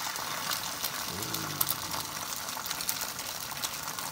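Egg whites sizzling in a hot frying pan, a steady hiss, with light clicks of a cooking utensil against the pan.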